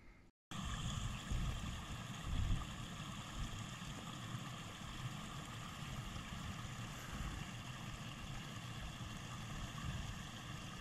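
Small creek running over rock cascades: a steady rush of water that starts about half a second in after a moment of silence, with an uneven low rumble underneath.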